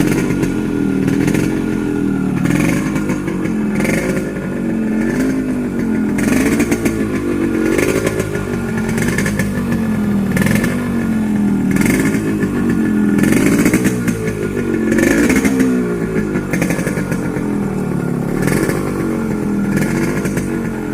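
1990 Yamaha RX100's two-stroke single-cylinder engine revved again and again: the throttle is blipped and released about a dozen times, the pitch rising and dropping back every second or two.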